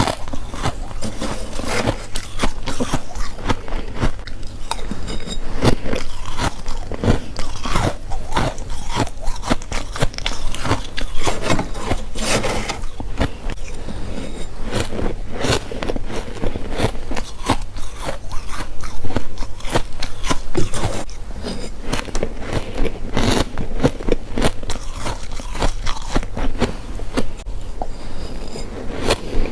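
Someone biting and chewing freezer frost: a steady run of crisp, irregular crunches and crackles.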